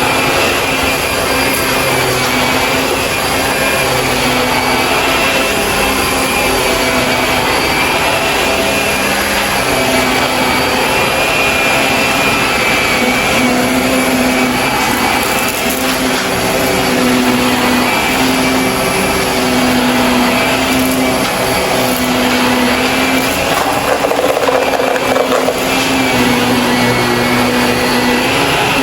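Shark vacuum cleaner running continuously, its motor tone wavering slightly as it moves, with occasional crunching of debris being sucked up.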